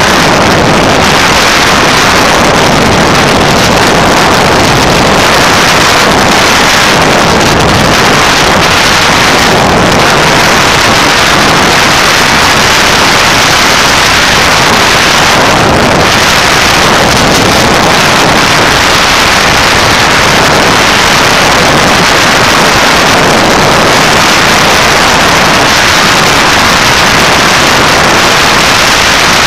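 Loud, steady rush of wind over the microphone of a camera riding on a moving motorcycle, with the bike's engine and tyre noise blended in underneath.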